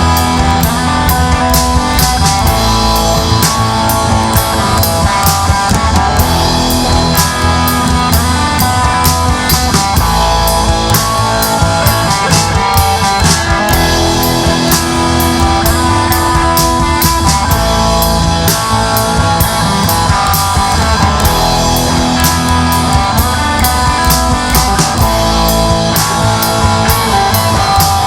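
Rock band playing the instrumental opening of a rock-and-roll song: a drum kit keeping a steady, driving beat under electric guitar and bass, loud and even throughout.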